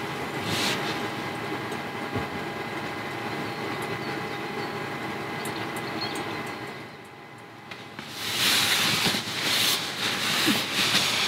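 A steady background hiss, then from about eight seconds in, louder uneven rustling of padded fabric as a person shifts and lies down in a sleeping bag and puffy jacket.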